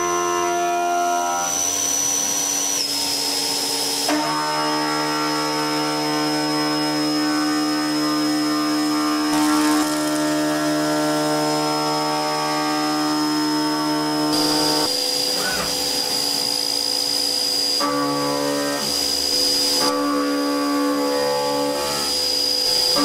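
CNC milling machine's end mill cutting metal: a steady, pitched cutting whine with a high spindle tone above it, which shifts in pitch several times as the cut changes.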